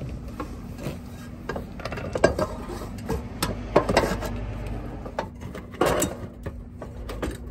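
A metal underbody brace plate on a Toyota Prius clinking and knocking against the car's underside as it is held up and lined up by hand. Scattered light clicks run through it, with a louder knock about six seconds in.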